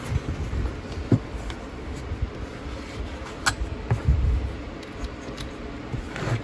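Handling sounds: a few scattered light knocks and clicks as a wooden presentation case is opened and a small pistol and a screwdriver are set into its felt-lined tray, over a low rumble.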